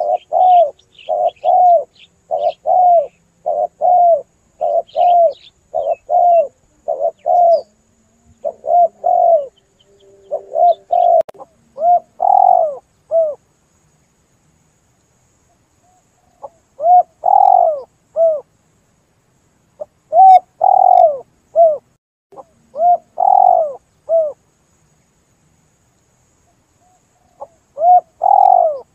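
Spotted dove (tekukur) cooing, played as a lure call. The first half is a run of short coos about two a second. After a pause of a few seconds come groups of three or four coos with gaps between them. Faint chirps of small birds can be heard in the first few seconds.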